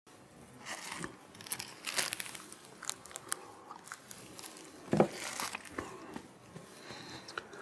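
A thin, crumpled clear plastic cup crinkling and crackling in a hand as it is raised for a sip and lowered again, with a sharper crackle about five seconds in.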